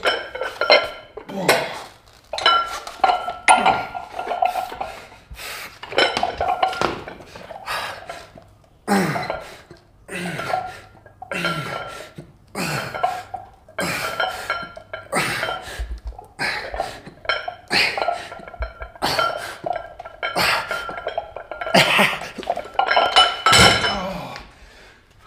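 Metal gym weights clanking: repeated metallic clanks and clinks at an irregular pace of roughly one a second, each ringing briefly.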